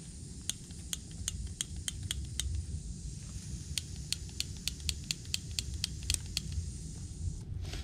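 Rapid sharp small clicks from a compact backpacking canister stove as it is worked on its gas canister, about three a second, in two runs with a pause of about a second between them. A low steady rumble lies underneath.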